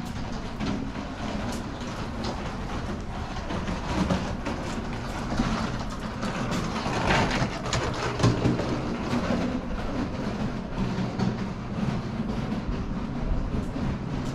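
Footsteps on stone flagstone paving, a run of regular clicks, over a steady low rumble of town background noise.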